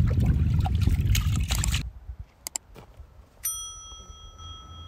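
Hands swishing and rubbing rice in a large pot of water to wash it, sloshing and splashing, stopping about two seconds in. After two short clicks, a bright bell ding rings out for about a second: the chime of a subscribe-button animation.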